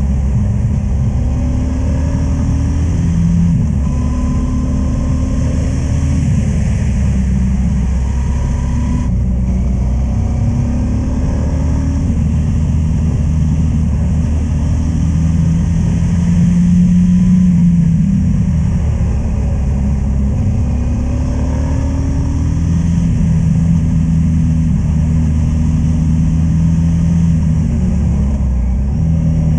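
Motorcycle engine running under way on a winding road, the engine note rising and falling gently with the throttle through the bends.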